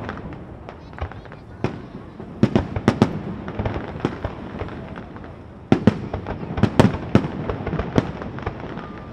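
Aerial fireworks display at close range: a steady run of sharp bangs and crackles. A cluster of reports comes near three seconds, and a louder, denser volley starts just before six seconds.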